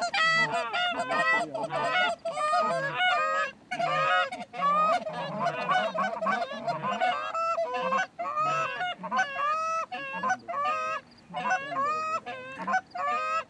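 Hand-held goose calls blown hard and fast by several callers: a steady stream of Canada goose honks and clucks, each note breaking sharply upward, overlapping one another.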